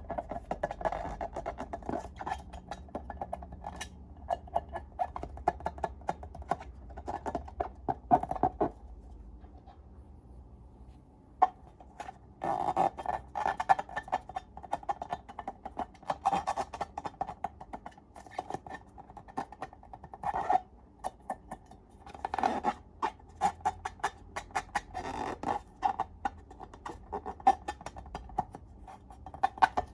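Slime being squished and worked by hand: dense runs of small sticky clicks and crackles that pause about nine seconds in and start again near twelve seconds.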